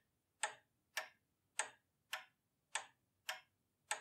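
Clock ticking as a time-bomb sound effect: seven sharp, even ticks, a little under two a second.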